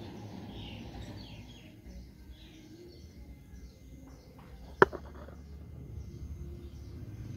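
Outdoor background of a steady low rumble with faint bird chirps, broken once about two-thirds in by a single sharp click, the loudest sound.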